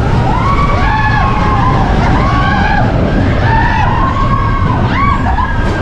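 Roller coaster ride heard from on board: a loud, steady rumble of the train running along the track, with repeated high squeals that rise and fall.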